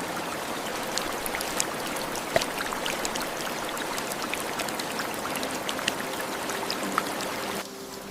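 Steady rush of falling water sprinkled with many sharp drip-like ticks, cutting off abruptly near the end.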